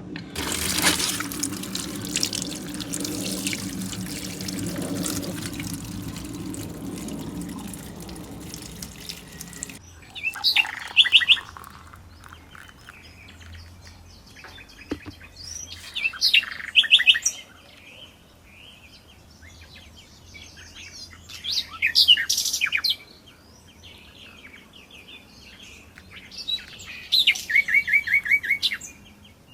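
A steady rushing noise with a low hum that cuts off suddenly about ten seconds in, then a bird calling in four bursts of rapid repeated chirps, spaced several seconds apart.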